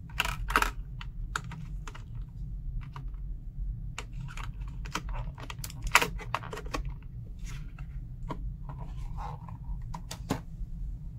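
Small hand tools and their plastic case from a Tamiya Basic Tool Set being handled: irregular clicks and taps, in clusters, over a steady low hum.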